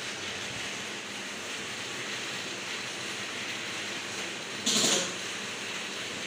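Large-format outdoor banner printer with KM512i print heads running a print: a steady mechanical hum and hiss from the machine. About three-quarters of the way in comes one brief, loud rush of noise lasting about a third of a second.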